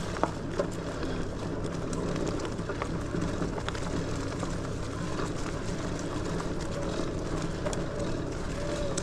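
Lectric XPeak 2.0 electric bike riding along a dirt trail: a steady low motor hum over the rolling noise of the tyres, with a few faint clicks.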